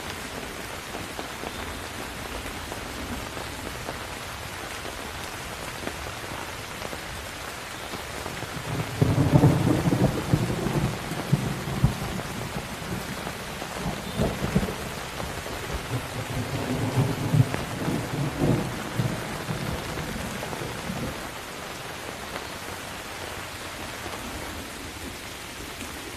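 Steady heavy rain with rolling thunder: a long low rumble swells about nine seconds in, and another comes near the middle of the stretch before fading back to rain alone.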